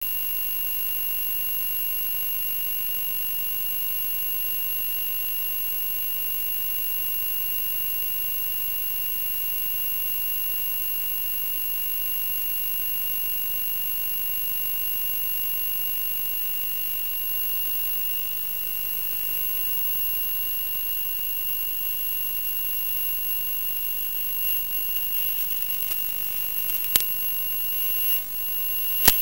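Steady electronic hiss with two constant high-pitched whines, the sound of an analog FPV video link's audio channel recorded by a DVR, with the plane's motor not running. From about 24 seconds in, irregular bumps and rustles come through, with two sharp clicks near the end as the plane is handled.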